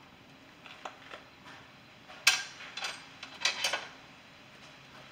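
Hand tools and metal parts clinking against the compressor mounting as it is unbolted. A few light clinks are followed by a sharp metallic clank about two seconds in and a quick cluster of clinks a second later.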